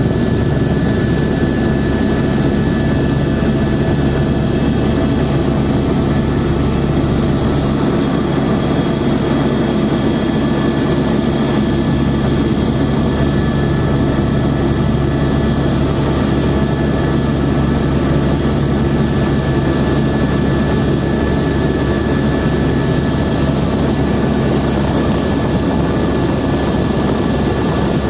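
Helicopter in flight heard from inside the cabin: steady turbine whine and rotor noise, loud and unchanging.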